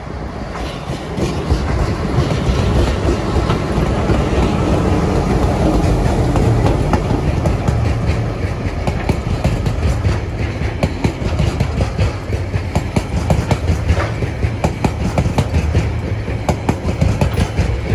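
Diesel-hauled freight train passing close by: locomotives TR12 and DQ 2011 go past, louder from about two seconds in, then loaded coal hopper wagons roll by with a steady low rumble. Repeated wheel clicks over the rail joints come through, more and more in the second half.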